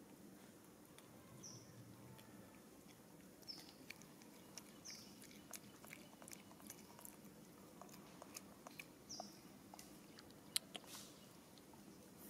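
Faint, irregular crisp clicks of a pig-tailed macaque chewing and biting food, with a few short, high chirps that fall in pitch.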